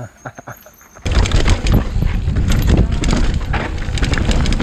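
Onboard camera sound of a mountain bike riding down a dirt trail, starting suddenly about a second in: loud wind rush on the microphone with frequent knocks and rattles of the bike over the rough ground.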